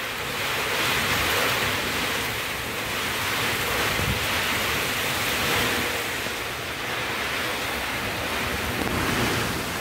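Heavy rainstorm in strong, gusting wind: a steady rush of rain and wind that swells and eases a little, with wind rumbling on the microphone.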